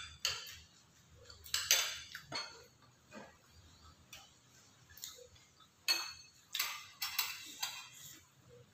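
Metal spoons and forks clinking and scraping against ceramic bowls while eating, in short irregular taps with a bright ringing edge.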